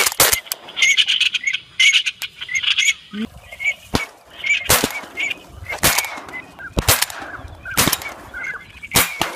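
Ducks calling in short, repeated notes, with a string of sharp bangs about once a second in the second half: shotgun shots at passing ducks.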